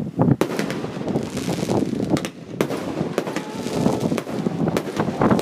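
Fireworks going off: an irregular, overlapping run of sharp bangs and crackles from bursting shells.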